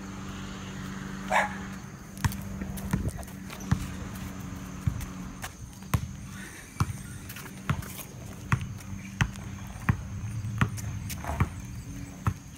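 Footsteps of a person walking on a concrete sidewalk, a regular step about every 0.7 seconds, over a steady low hum. One short higher-pitched sound comes about a second and a half in.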